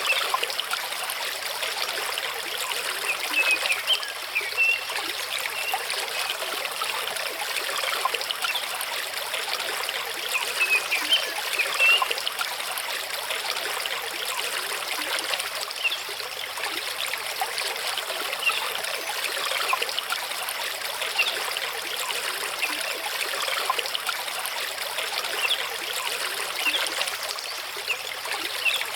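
Mountain stream running over rocks: a steady rush of water with small splashes and trickles rising briefly above it here and there.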